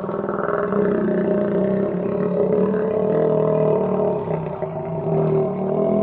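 Dinosaur roar sound effect: one long, drawn-out call that holds a fairly steady pitch throughout.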